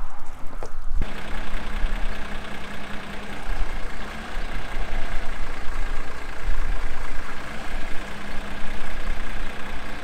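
John Deere 4240 tractor's six-cylinder diesel engine running steadily at idle, with a steady high whine over it. It comes in abruptly about a second in, after a low rumble of wind on the microphone.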